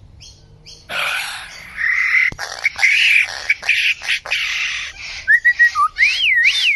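Lyrebird singing: a run of harsh, rasping calls with a sharp click, then whistled notes sliding up and down near the end.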